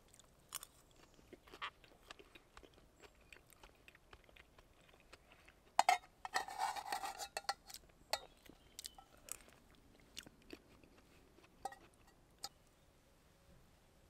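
A person eating stew close to the microphone: quiet chewing with small clicks of a metal spoon on a steel pot, and a louder run of clatter and chewing about six seconds in.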